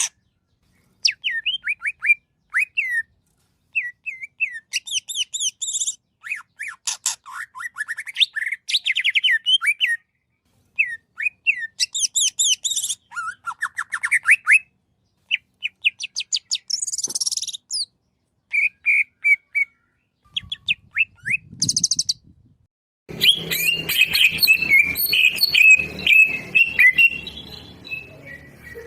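Green leafbird (cucak ijo) singing a fast, varied song of chirps, trills and whistled phrases, in short bursts with brief pauses between them. About three-quarters of the way in, a steady noisy background hiss and rumble comes in under the still-continuing song.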